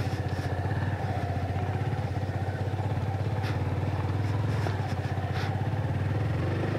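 Yamaha FZ25's single-cylinder four-stroke engine running at low, steady revs, an even rapid pulse with no revving, as the motorcycle rolls slowly along; a few faint clicks over it.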